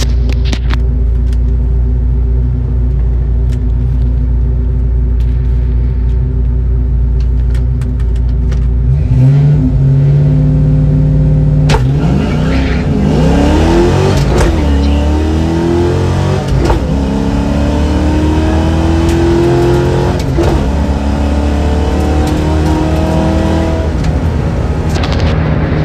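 1994 Ford Mustang GT's 5.0 V8, breathing through shorty headers, an X-pipe and Flowmaster 40-series mufflers, heard from inside the cabin. It idles steadily, the revs come up and hold from about nine seconds in, and at about twelve seconds it launches at full throttle into a quarter-mile pull. The pitch climbs in each gear and drops three times at the manual upshifts.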